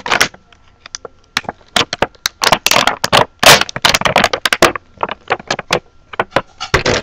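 Stiff plastic action-figure packaging crackling and crinkling as it is handled and pulled apart: an irregular run of sharp cracks, densest and loudest in the middle.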